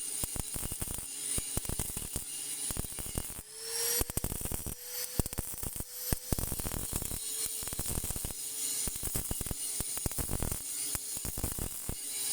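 Welding arc from a Paton PSI-250P welder crackling and spitting steadily as it runs along a truck chassis. The arc breaks off briefly about three and a half seconds in, and after it restarts a steady tone sounds for a few seconds.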